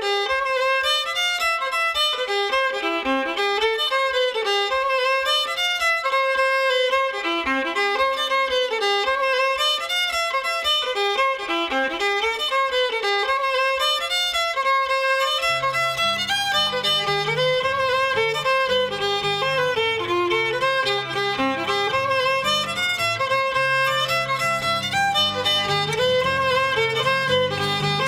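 Irish traditional fiddle tune: a quick, ornamented melody over a steady held note. About fifteen seconds in, a lower accompaniment joins underneath.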